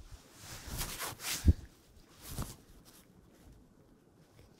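Fabric rustling as a puffer coat is handled and put on, with a sharp thump about a second and a half in and a softer one about a second later.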